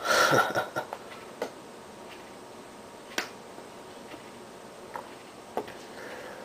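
A short, loud, noisy burst right at the start, then about six sharp clicks at irregular intervals, the clearest about three seconds in.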